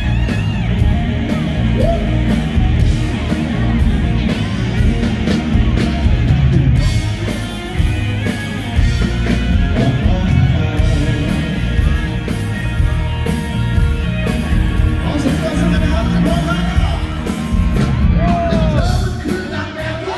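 Live rock band playing loudly: a male lead singer over electric guitars, bass and drums, with the drums hitting steadily throughout.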